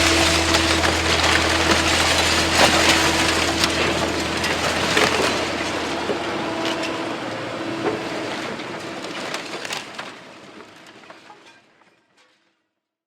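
Building being demolished: wood and debris crunching and splintering, with sharp cracks, over a steady low hum. It all fades out to silence near the end.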